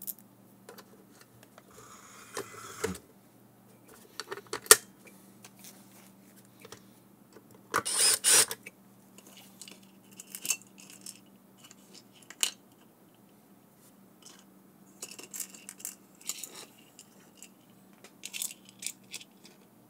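Sporadic clicks, clinks and scrapes of small screws and washers being handled and set by hand into a motor controller's housing on a workbench, with a longer, louder scrape about eight seconds in.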